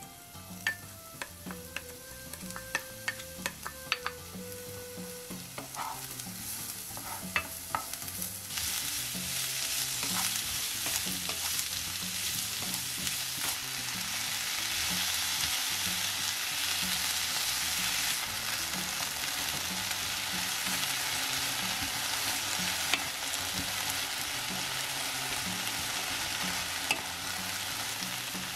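Vegetables sizzling in oil in a frying pan as a wooden spoon stirs them. The first several seconds hold a string of sharp taps and clicks of the spoon against the bowl and pan over a faint sizzle. Then, about eight seconds in, a loud, steady sizzle starts as the sliced zucchini and onion fry.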